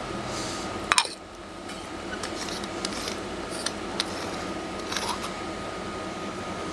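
Handling of a clear plastic-and-metal herb grinder and its small accessories: a few sharp clicks and taps, the loudest about a second in, over a steady background hum.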